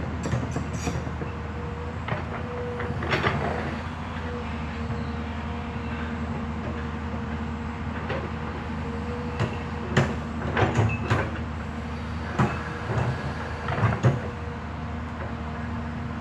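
Hyundai HX210S excavator's diesel engine running steadily, with a sharp knock about three seconds in and a cluster of clanks later on.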